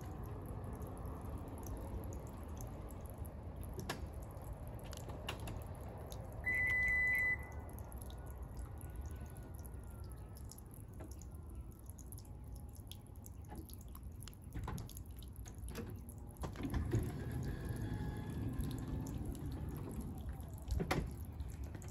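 Water dripping in scattered small clicks over a low steady background, with one short, loud, high beep about six and a half seconds in.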